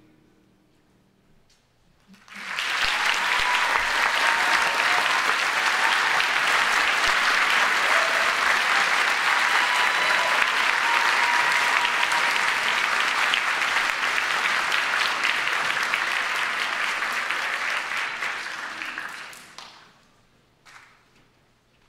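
Concert-hall audience applauding, starting about two seconds in, holding steady, then dying away near the end.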